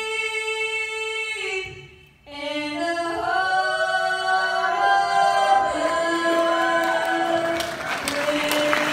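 A solo female voice sings the national anthem a cappella into a microphone. She holds a long note, breaks off with a short pause about two seconds in, then sings a rising phrase that ends on long held notes. Applause and cheering break out near the end, over the last held note.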